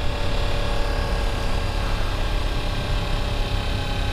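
Sport motorcycle engine running at a steady, low speed while the bike is ridden along, its pitch holding level, over a constant low rumble.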